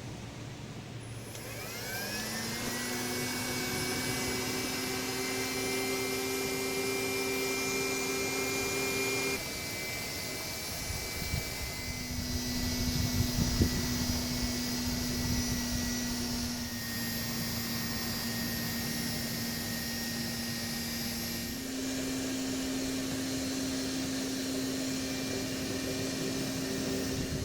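A small motor spinning up with a rising whine, then running steadily with a humming tone that steps slightly up or down in pitch a few times.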